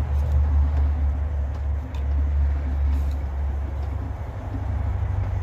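Propane burner running under a pot that is already boiling, a steady low rumble with a hiss over it that swells and eases.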